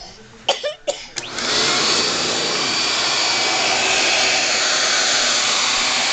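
An upright vacuum cleaner switches on about a second in, after a couple of short knocks, and then runs steadily with a loud, even whoosh of motor and airflow.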